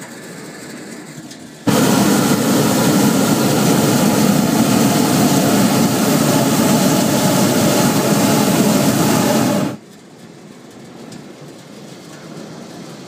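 Hot air balloon's propane burner firing in one long blast of about eight seconds, switching on abruptly a couple of seconds in and cutting off sharply. A quieter steady hiss lies before and after it.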